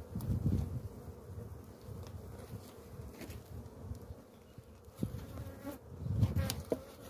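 Honeybees buzzing over an open hive, a steady faint hum. Low rumbles swell at the start and again about six seconds in, with a few light knocks in the second half.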